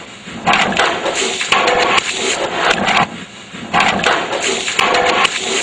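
A person tripping and falling against wooden lab cabinets, heard as several loud bursts of clatter and knocks.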